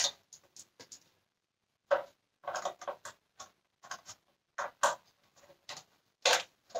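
Irregular plastic clicks and knocks as the dusty cyclone cone assembly of a Dyson Cinetic Big Ball vacuum is handled and turned over, about a dozen small taps spread unevenly, a few with a short scraping rustle.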